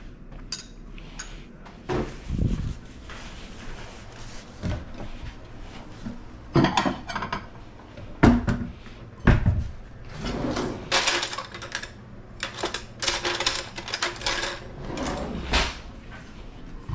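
Kitchen cupboard door opened and dishes knocking and clinking as a plate is taken out, a run of separate knocks that grows busier in the second half.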